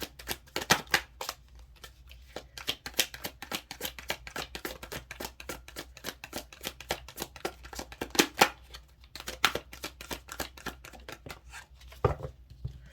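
A deck of cards being shuffled by hand: a dense, irregular run of quick papery flicks and snaps, which stops about a second before the end.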